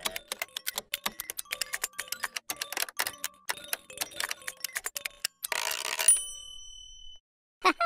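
Slot-machine sound effect: rapid clicking of spinning reels for about five seconds, then a burst with a bell-like ring that fades as the reels stop. A short pitched sound follows near the end.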